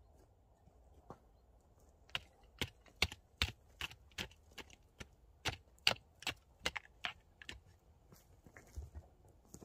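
A run of sharp clacks and taps, about two or three a second, starting about two seconds in and thinning out near the end: hard objects knocking on stones and dry, stony ground as the ground is worked by hand.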